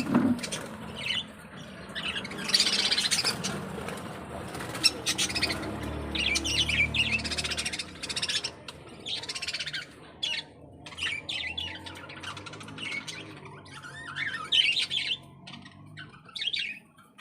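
Cockatiels and budgerigars calling, with repeated squawks and chirps. A low hum runs for a couple of seconds around the middle.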